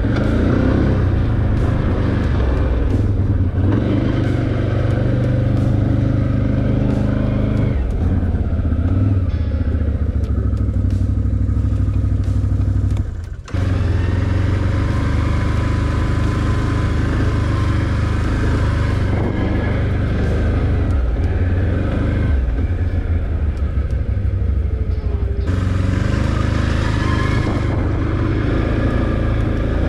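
Can-Am ATV engine running while riding a trail, its engine speed shifting up and down a few times. The sound drops out briefly about halfway through.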